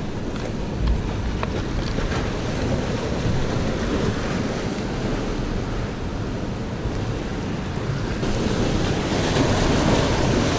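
Sea surf washing and surging against the rocks of a narrow inlet, with wind buffeting the microphone; the surf grows louder about eight seconds in.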